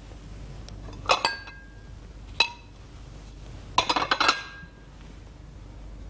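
Porcelain clinking as the ink brush is rinsed in a ceramic water bowl and knocked against the dishes: a couple of light knocks about a second in, one sharp ringing clink a little before halfway, and a quick flurry of clinks near four seconds.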